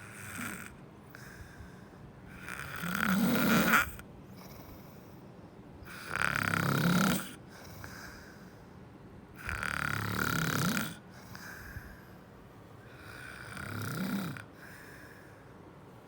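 Snoring: four loud snores spaced about three and a half seconds apart, each lasting a little over a second, with a faint shorter one at the start and quiet breathing in between.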